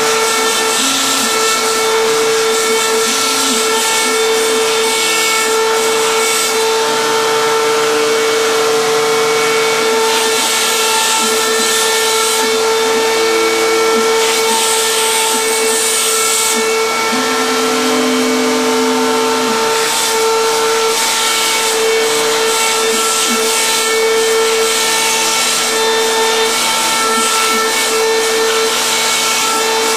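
PhlatPrinter MKII CNC router cutting a foam sheet: the cutting spindle runs with a steady whine, and under it the stepper motors driving the gantry hum at pitches that jump every second or so as the cutter changes direction and speed.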